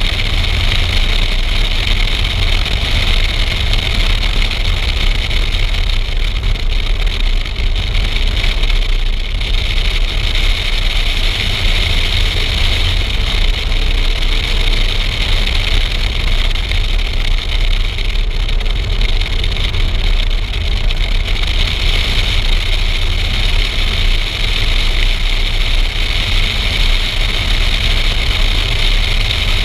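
Car driving at speed around a race track, heard through a camera mounted on the outside of the car. A steady, loud rush of wind on the microphone sits over the engine and tyre noise.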